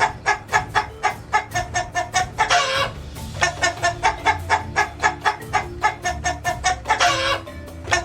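Chickens clucking rapidly and evenly, about five clucks a second, broken twice by a short, louder squawk.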